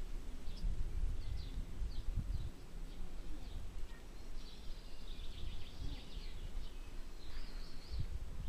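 Small birds chirping in short high calls, with a longer twittering run about halfway through and another near the end, over an uneven low rumble of wind on the microphone.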